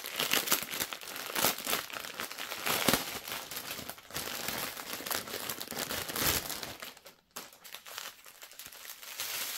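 Thin plastic packaging crinkling and rustling as a plastic-wrapped bundle of diamond-painting drill bags is handled and unwrapped. There is a short lull a little after seven seconds in.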